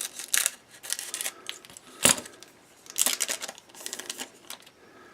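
Scissors snipping open a foil trading-card pack, a series of short clicks and crinkles with one sharp click about two seconds in.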